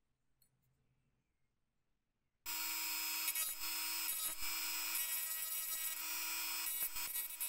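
Near silence, then about two and a half seconds in a pen-style rotary tool switches on and runs steadily with a high-pitched whine, its grey abrasive point grinding the edge of the switch slot in the steel flashlight body.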